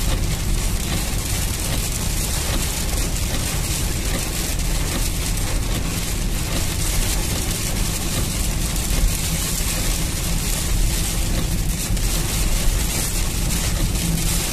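Heavy rain beating on a car's roof and windscreen, heard from inside the moving car over the steady rumble of the engine and the tyres on the wet road.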